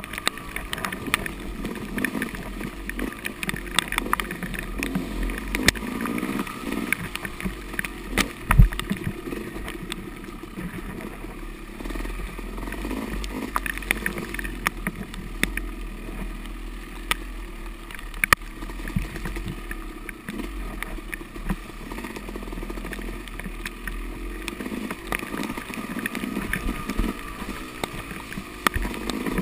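Yamaha dirt bike engine under race load, revving up and down as the rider works the throttle through a muddy woods trail. Scattered sharp knocks and clatter from the bike over rough ground, the loudest about a third of the way in.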